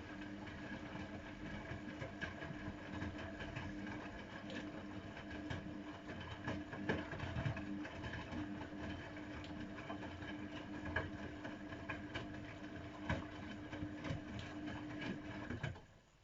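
AEG Öko-Lavamat 693 front-loading washing machine running its drum motor during a 95 °C boil wash, a steady hum with irregular clicks and knocks from the tumbling wash. The motor stops abruptly near the end.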